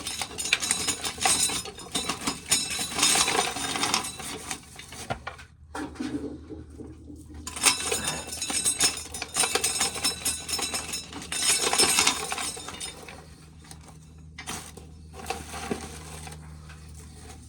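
Dried corn kernels being shelled off the cob, a dense clicking rattle as they drop into a plastic container, coming in busy stretches with short pauses and dying down for the last few seconds.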